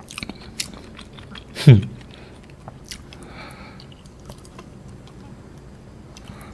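Soft green-apple yogurt agar-agar jelly being bitten straight out of a paper drink carton and chewed, with many small clicking mouth noises. A short vocal sound falling in pitch comes from the eater a little under two seconds in, and is the loudest thing heard.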